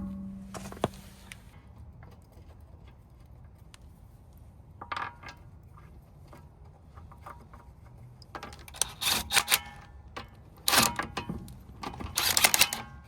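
Metal clinking and rapid clicking from wheel lug bolts and a hand wrench as a rear wheel goes back on, in a short burst about five seconds in and several longer bursts in the second half.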